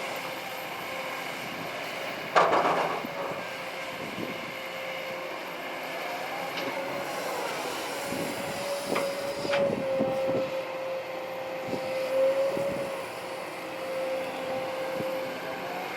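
Kobelco SK200-8 Super XM hydraulic excavator at work: its diesel engine runs steadily under a held hydraulic whine. There is a loud clank about two and a half seconds in, then scattered knocks and creaks from the bucket and boom.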